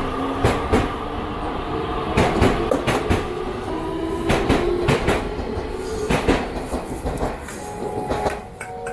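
A train running on rails: wheels clicking over rail joints in irregular knocks, with a steady whine that rises in pitch.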